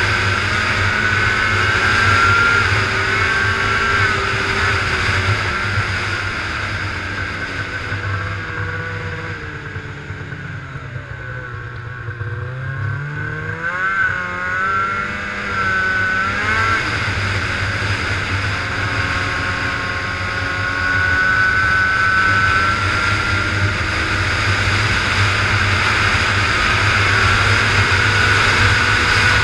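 Ski-Doo snowmobile running along a packed trail, its engine note mixed with track and wind noise. The engine eases off and drops in pitch until about halfway through, then picks up again.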